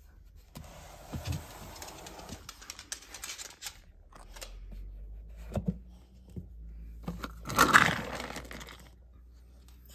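A plastic pet-food storage bin being opened: the lid scrapes and clicks, then dry kibble rattles as it is scooped out, loudest just before eight seconds in.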